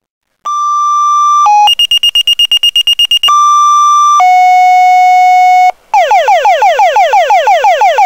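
Electronic siren stepping through its tones: a steady high tone, a brief lower one, a rapid pulsing beep about ten times a second, two more steady tones, then after a short break a fast repeating downward sweep about six times a second.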